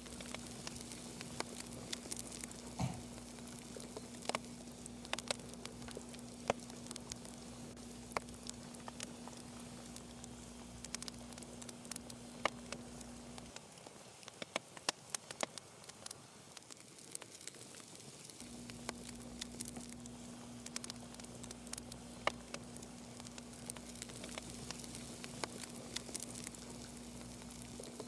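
Quiet room tone: a steady low hum that drops out for about five seconds midway, with scattered faint clicks and ticks throughout.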